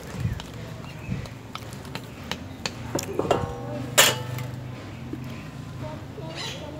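Aluminium pot and lid clinking and knocking: a scatter of light metallic knocks, with one sharp ringing clank about four seconds in, over a faint low steady hum.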